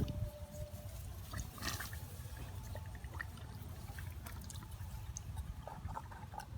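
Shallow water trickling and splashing lightly, with scattered small clicks and knocks.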